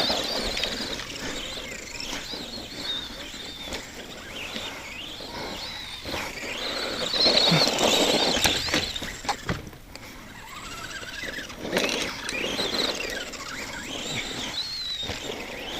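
Arrma Granite RC monster truck's electric motor and drivetrain whining, the pitch rising and falling as the throttle is worked in several bursts.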